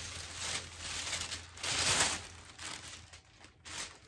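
Rustling and crinkling of wallpaper rolls and their wrapping being handled, in uneven bursts that die down near the end.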